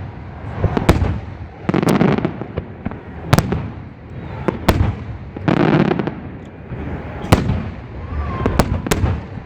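Fireworks going off: a string of sharp cracks about one to one and a half seconds apart, with heavier rumbling booms about two seconds in and again near six seconds.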